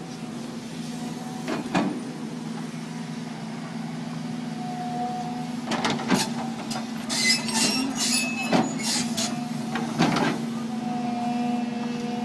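Volvo excavator's engine running steadily under load, with a whine that swells and fades as the arm works, while its trenching bucket scrapes and knocks against soil and stones in the trench; a burst of sharp clanks and scrapes comes in the middle.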